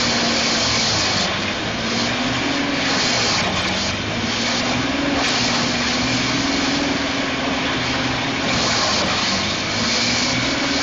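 Rayco horizontal grinder running: a loud, steady machine noise with an engine hum whose pitch wavers slightly up and down.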